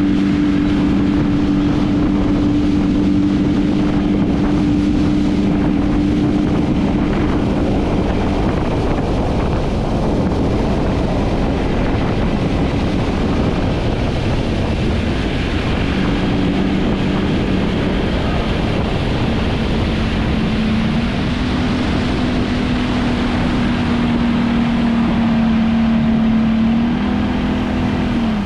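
Outboard motor driving a motorboat at speed, its steady hum carried over strong wind on the microphone and rushing water from the wake. The engine note drops away a few seconds in, returns, and dips in pitch near the end.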